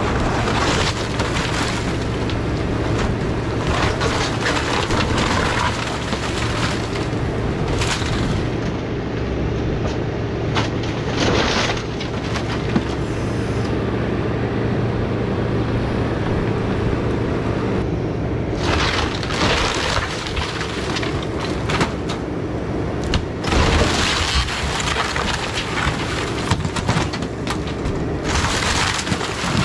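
Takeuchi TB2150 excavator's diesel engine running steadily under load as its bucket and thumb tear into a house's roof and walls, with repeated crashing, cracking and splintering of wood and debris.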